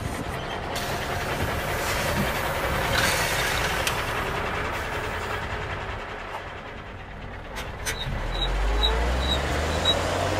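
Bruder toy truck play: a rushing, engine-like vehicle noise that swells about three seconds in. Near the end a low hum sets in under a rising whine, with a few short high beeps.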